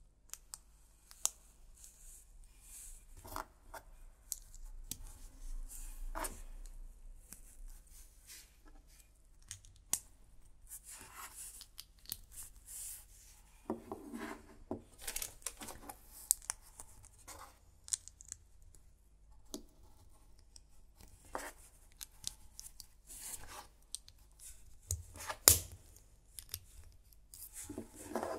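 LEGO plastic bricks and Technic beams being handled and pressed together: scattered small clicks and snaps with light rubbing and rattling of parts, and one sharp snap about three-quarters of the way through.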